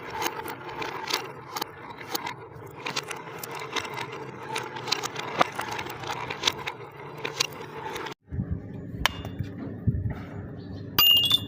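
Marbles rolling and clattering down a marble run, with many quick clicks against the track. After a sudden cut about eight seconds in comes a lower rolling rumble, and near the end one bright ringing note, like a xylophone bar struck by a marble.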